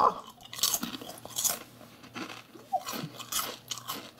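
A wavy-cut Lorenz Crunchips Roasted potato chip being chewed close to the microphone: irregular, crisp crunches, denser in the first half.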